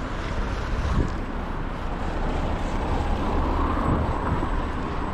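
Steady wind rush and rumble on the microphone with rolling road noise from a scooter riding along a town street.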